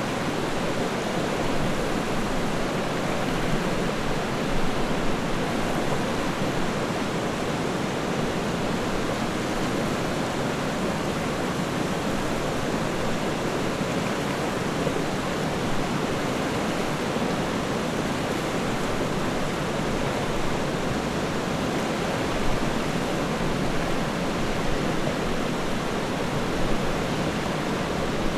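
River water rushing and burbling over rocks in a steady, continuous wash, with small swells in loudness now and then.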